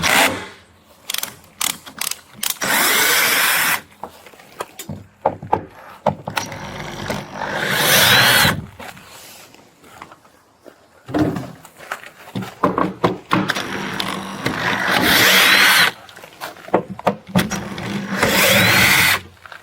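Power drill run in about five bursts of one to two seconds each, the whine rising in pitch near the end of several bursts, with knocks and clicks between them.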